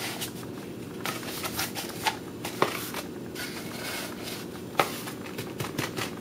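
Sheet of paper being rolled and squeezed into a tube by hand, rustling and crinkling in short irregular bursts, with two sharper clicks partway through, over a steady low room hum.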